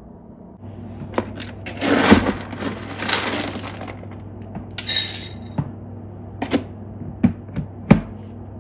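Household handling noises: sharp clicks and knocks, a brief ringing clink and two rustling swishes over a steady low hum.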